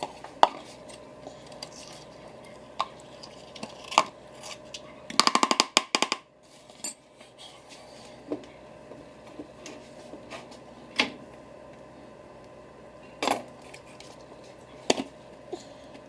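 Scattered knocks and clinks of dishes and kitchen utensils during cooking, with a quick rattling run of clicks about five seconds in.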